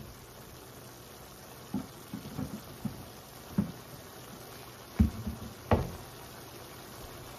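Beef and onions simmering in a stainless steel sauté pan, a steady low hiss, with a handful of dull knocks in the middle, the loudest two close together about five seconds in.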